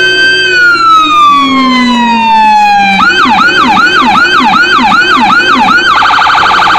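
Whelen HHS3200 electronic siren sounding through its speaker: a long tone that slides slowly down in pitch, then about three seconds in it switches to a quick yelp of about three rising-and-falling sweeps a second, and near the end to a much faster warble.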